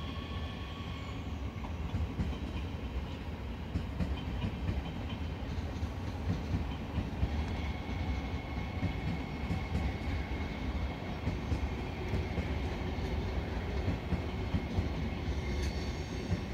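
Rhein-Ruhr-Xpress double-deck electric multiple unit (Siemens Desiro HC) running past on the tracks: a steady rumble with regular wheel clacks over the rail joints, and a thin steady whine from about eight seconds in.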